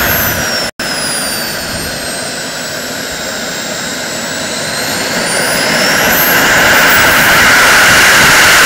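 JetCat 120 model jet turbine in an RC Pilatus B4 glider, running on the ground with a loud rush and a high whine. Just after the start the whine falls and the sound eases as it throttles back, then from about five seconds in it spools back up to full loudness.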